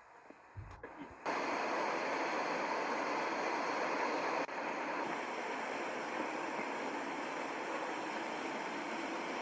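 Steady rushing of a river's flowing water, starting abruptly about a second in after a few low thumps, with a brief break a few seconds later.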